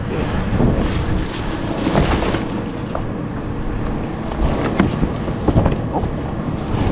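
Rear-loader garbage truck's engine running steadily with a low rumble, with intermittent scrapes and knocks of flattened cardboard boxes being shifted by hand.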